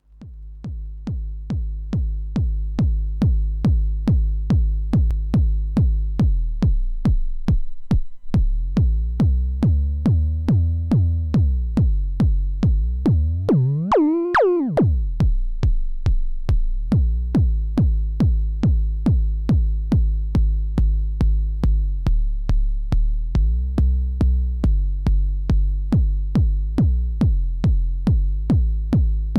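TR-909 clone drum machine playing a steady four-on-the-floor bass-drum pattern, about two beats a second, fading in at the start. The low ringing tone under the beat shifts in pitch several times and sweeps sharply up and back down about fourteen seconds in.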